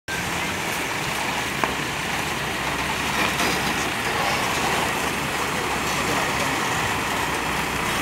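Diesel engine of a Case 1107EX single-drum road roller running steadily as the roller moves backwards along a flatbed truck's bed to unload. A single short click comes about a second and a half in.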